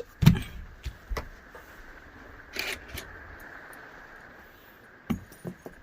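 Scattered clicks and knocks of things being handled, the sharpest just after the start and a small cluster near the end, over a faint steady hum.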